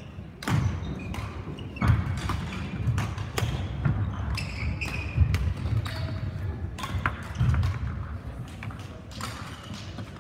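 Badminton hall sounds: irregular sharp racket strikes on shuttlecocks and brief shoe squeaks on the court floor, with low thuds of footsteps, echoing in a large sports hall.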